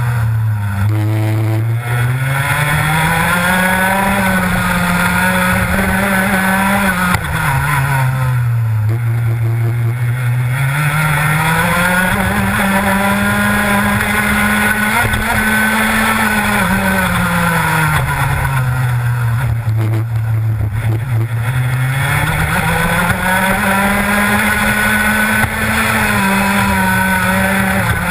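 Rotax Max 125cc two-stroke kart engine at racing speed. The revs drop as the kart goes into corners near the start, about nine seconds in and about twenty seconds in, and climb again out of each corner onto the straights.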